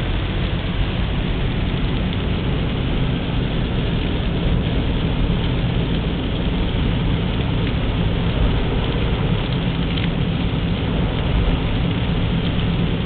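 Steady, loud rushing of water, as from floodwater or heavy rain, without a break.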